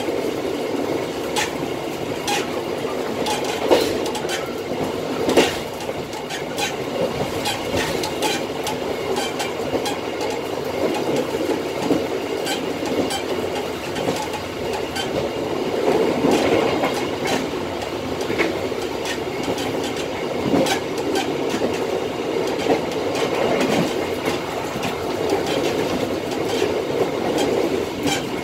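Train running at speed on the rails, heard from inside the rear cab: a steady rolling rumble with frequent, irregular sharp clicks and knocks from the wheels on the track.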